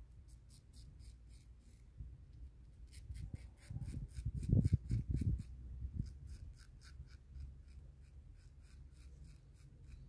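Straight razor with a replaceable blade scraping through two-week-old beard stubble under shaving lather: runs of short rasping strokes, about five a second, with a low rumble partway through.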